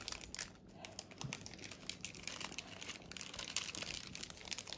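Faint crinkling and rustling of small paper wrappers as they are handled and unfolded by hand, in many small, irregular ticks.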